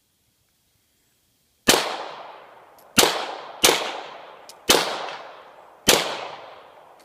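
Five 9mm pistol shots fired at uneven spacing, roughly a second apart, the first coming nearly two seconds in. Each crack rings off with a short echo.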